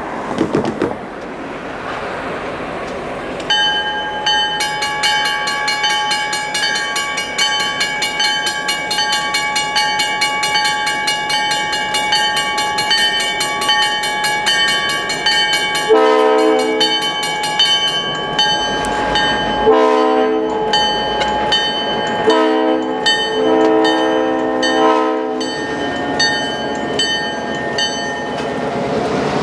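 EMD GP9M diesel locomotive approaching with its bell ringing steadily, then its air horn sounding several blasts over the second half while the bell keeps ringing. The train's noise grows louder as the locomotive draws alongside near the end.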